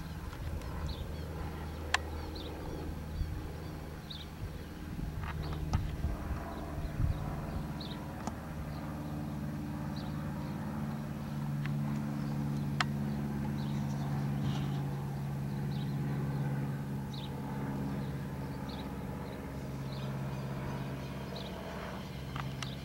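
Steady low hum of a vehicle engine or road traffic, a little louder in the second half, with faint short high chirps of small birds scattered throughout and a few sharp clicks.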